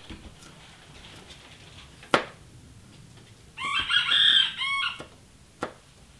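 A rooster crows once in the background, starting about three and a half seconds in and lasting just over a second. Before it, a knife strikes a wooden cutting board with one sharp knock while garlic is being minced, and a lighter knock follows near the end.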